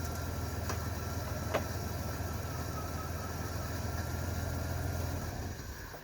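A 1998 Dodge Grand Caravan's engine idling steadily, with a faint steady whine above it and a light click or two. The engine stops near the end.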